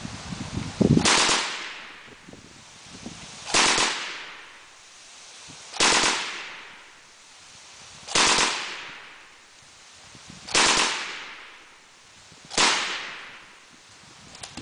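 Six short bursts of full-automatic fire from a bipod-mounted light automatic weapon, coming about every two seconds. Each burst ends in a ringing echo that fades over about a second.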